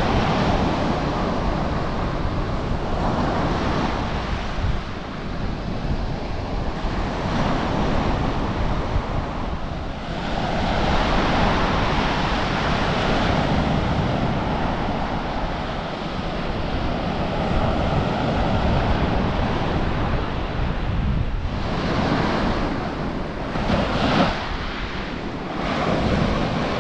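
Small waves breaking and washing up a stony, weed-covered beach. The wash swells and eases every several seconds, with a sharper surge near the end.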